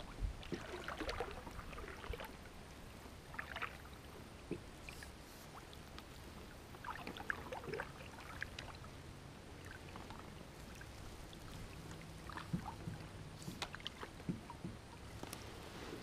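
Kayak paddling: faint splashes and drips of water as the paddle blades dip and lift, coming in scattered clusters every few seconds.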